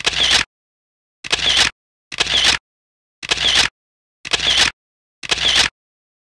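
Camera shutter sound effect, repeated six times at about one a second. Each click lasts about half a second, with dead silence between.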